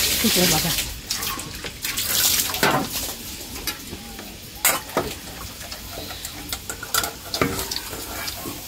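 Eating at a table: chewing, slurping and wet mouth noises, with scattered sharp clicks of a spoon and fingers against steel bowls and plates.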